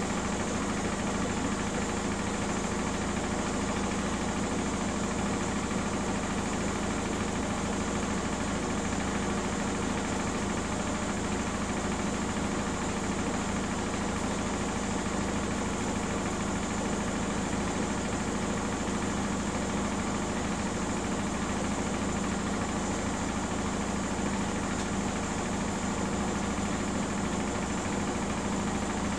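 Miele W 5963 front-loading washing machine in its spin cycle, the drum spinning steadily at high speed with a constant low hum.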